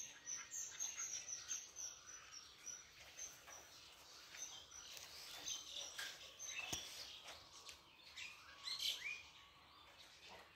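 Small birds chirping: a quick run of short, high chirps over the first few seconds, then scattered, more varied calls.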